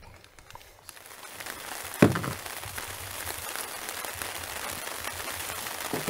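Steady crackling hiss of light rain, setting in about a second in, with one sharp knock about two seconds in.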